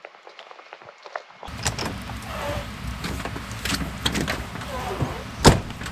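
Vehicle running with a steady low rumble that starts abruptly about a second and a half in, with scattered clicks and one sharp knock near the end.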